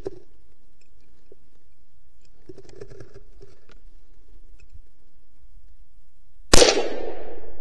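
A single shot from a Ruger American .22 Magnum rimfire rifle about six and a half seconds in: one sharp crack followed by a long fading echo. Before it, only a few faint rustles.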